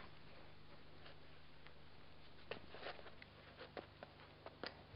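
Near silence with a steady low hum, broken in the second half by a few faint, sharp clicks of stone against stone as the obsidian biface and the limestone hammerstone are handled.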